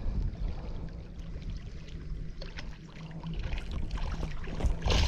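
Water sloshing and splashing against a small boat, over a low rumble of wind on the microphone, with a louder burst of splashing near the end.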